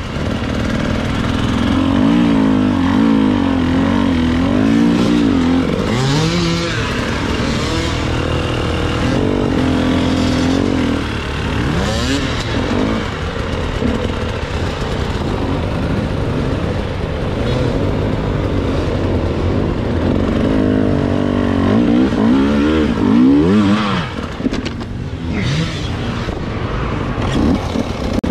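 Husqvarna TE 300 two-stroke enduro motorcycle being ridden, its engine revving up and down over and over as the throttle is opened and closed.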